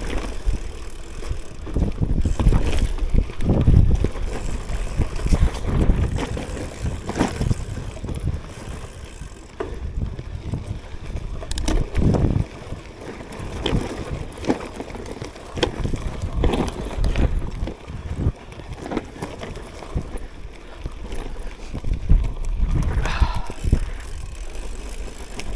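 CUBE Cross Race Pro gravel bike rolling over a rough dirt trail: steady tyre rumble with wind buffeting the action camera's microphone. Frequent irregular knocks and rattles come as the bike jolts over bumps and roots.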